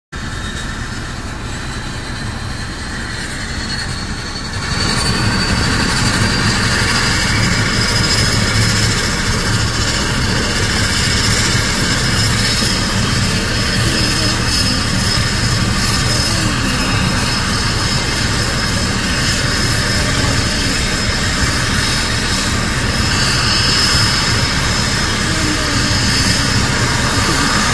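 Twin turboprop engines of a DHC-6 Twin Otter running on the ground. A high turbine whine rises slowly in pitch over a steady low drone, and the sound grows louder about four and a half seconds in.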